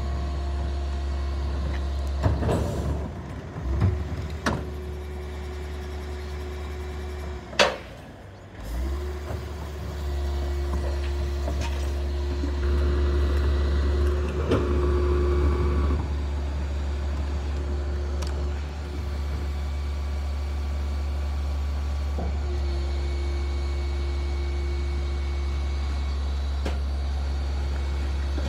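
Old Isuzu rear-loader garbage truck running at the kerb, its engine a steady low hum under a whine that cuts out and comes back as the rear lifter tips wheelie bins. A few knocks from the bins and one sharp, loud bang about eight seconds in.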